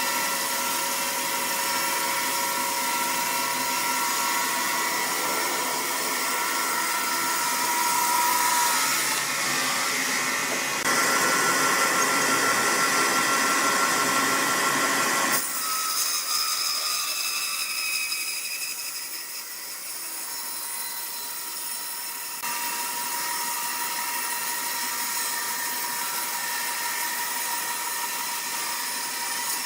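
Woodworking machinery running steadily, a high, hissing machine noise with faint steady tones, changing abruptly in level and character several times.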